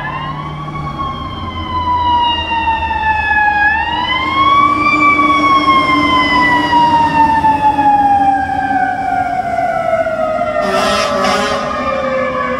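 Fire engine siren wailing. The pitch climbs quickly and then sinks slowly over several seconds, twice. A short burst of hiss comes near the end.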